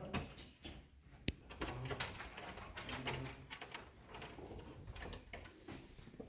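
Scattered light clicks and knocks of handling and movement, with one sharp click about a second in.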